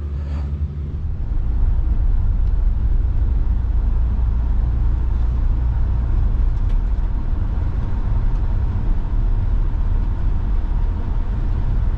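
Truck driving, a steady low engine and road rumble that grows louder about a second in.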